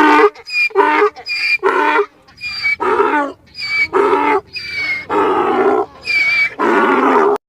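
An animal calling over and over, about a dozen loud calls in quick succession, each under a second long, that stop abruptly near the end.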